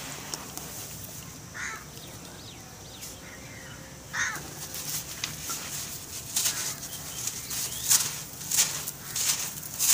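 Hands crumbling lumps of compacted dry sand over loose sand: gritty crunching and sand pouring down. It comes in repeated bursts that grow dense and louder from about six seconds in.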